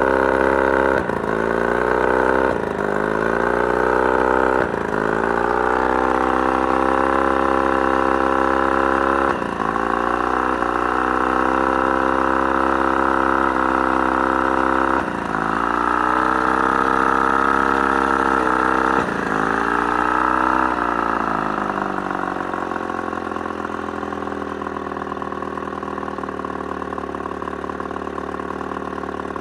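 Mercury 35 hp two-stroke outboard running at mid throttle, stumbling about six times with a sudden cough as the revs dip and recover. This is the random mid-throttle misfire that nearly cuts the motor off. Near the end it is throttled back and settles to a lower, steadier run.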